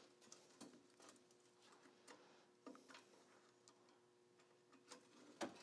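Near silence with faint, scattered metallic ticks and taps as a pry bar works the WRX's exhaust downpipe loose from the turbocharger, under a faint steady hum that stops near the end.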